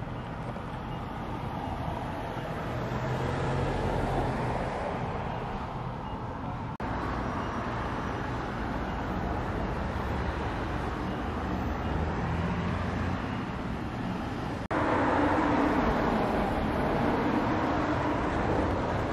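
Steady street ambience with a low hum of distant traffic. The background changes abruptly twice, where the recording is cut.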